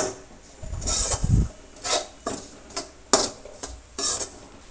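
Perforated steel ladle stirring dry-roasting semolina in a metal kadhai: irregular scrapes and light clinks of metal on metal, about two a second, with a dull knock about a second in.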